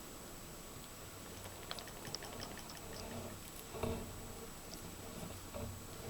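Kinder Surprise egg handled as its foil wrapper is unwrapped: faint crinkles and light ticks, with one soft thump about four seconds in.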